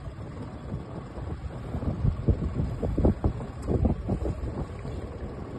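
Wind buffeting the microphone over water sloshing and splashing against a small open fishing boat's hull, with irregular splashes as a wire fish pot is hauled up to the surface alongside.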